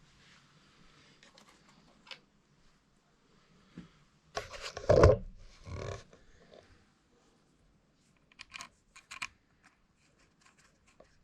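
Handling noises: faint scratching, then a loud rustling scrape lasting about two seconds midway, followed by a few sharp clicks.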